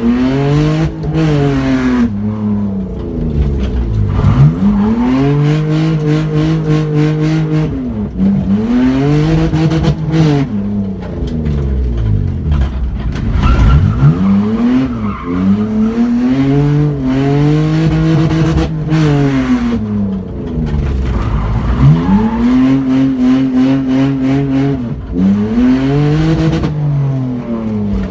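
BMW E46 drift car's engine revving hard during donuts: the revs climb, hold at a steady high note, then drop away, over and over every few seconds, with tyres skidding and squealing on the loose surface.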